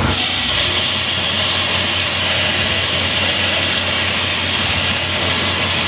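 Fire extinguisher discharging in a steady, loud hiss onto the burning side panel of a generator truck. A steady low engine hum runs beneath it.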